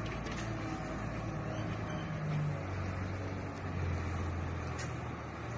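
Dump truck's diesel engine running at low revs as the truck slowly reverses, a steady low drone.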